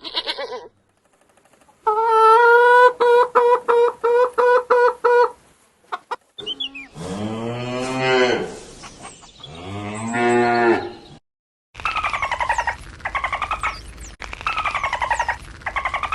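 A run of farm-animal calls with short silences between them: a steady, rapidly pulsing call first, then two long cow moos in the middle, then a rapid chicken-like clucking to the end.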